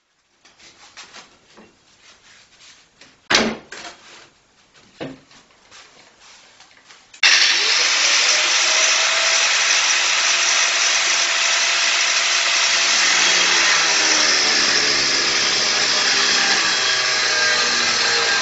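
A few knocks from the steel bar being handled, then about seven seconds in an angle grinder with a thin cutting disc starts and cuts through flat steel bar: a loud, steady grinding hiss, with the motor's whine dipping lower as the disc bites into the metal.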